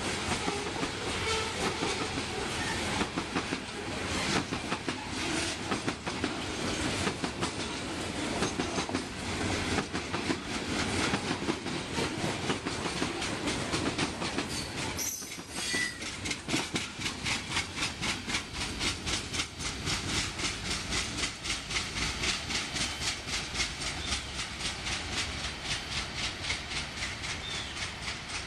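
Coal hopper cars of a freight train rolling past, wheels clicking over rail joints with a steady rumble and rattle. About halfway through the sound breaks off briefly and then continues as an even clickety-clack.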